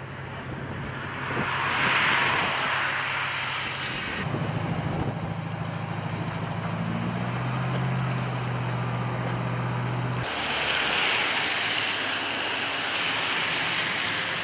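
Rushing, splashing water from the waves of a side-launched cargo ship, with a steady low engine hum beneath. The hum cuts in louder about four seconds in and stops abruptly about ten seconds in, leaving the rushing water.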